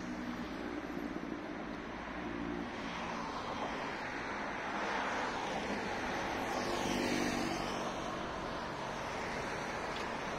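Road traffic on a city street: a steady hiss of passing cars that swells as a vehicle goes by about two-thirds of the way in.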